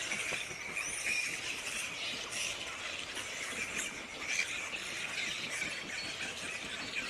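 Dense outdoor chorus of chirping birds and insects, a steady high buzzing trill with scattered short chirps over it.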